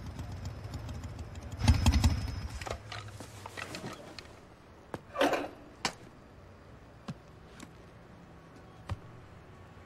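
A motorcycle engine running low and fading away over the first few seconds, with a short louder burst about two seconds in. After that it is quiet, with a few small clicks and a brief rustle about five seconds in.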